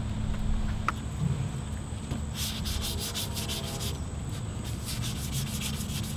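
Fine-grit sandpaper wet sanding the new clear coat on a BMW E39's body panel by hand. About two seconds in it settles into quick, rhythmic back-and-forth strokes.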